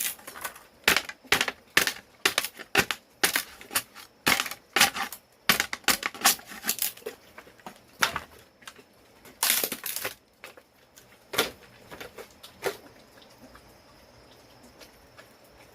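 A quick, irregular series of sharp knocks or chopping strokes, about two or three a second, that stops about thirteen seconds in. After that only a faint, steady high tone remains.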